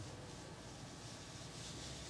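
Faint, soft swishing strokes of hands rubbing during a massage, a few in a row, over a low steady hum.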